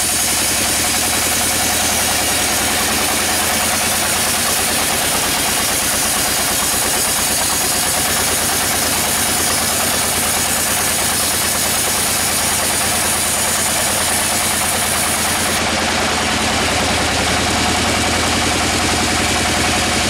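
Sawmill band saw running steadily while its blade rips lengthwise through a crooked teak log: a dense mechanical drone with a rapid, even pulse under it. A high hiss on top drops out about three-quarters of the way through.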